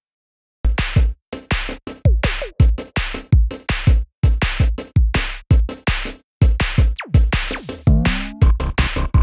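Electronic background music with a steady, punchy drum-machine beat and deep bass hits, starting suddenly about half a second in after total silence; a few synth pitch glides come and go.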